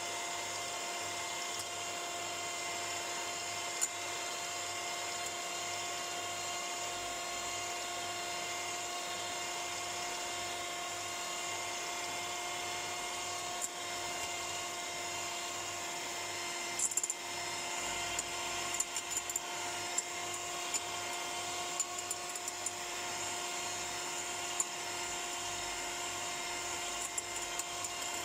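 Electric hand mixer running at a steady speed, its twin beaters whipping egg whites into a white foam in a glass bowl. The motor gives a steady whine, with scattered light clicks in the second half.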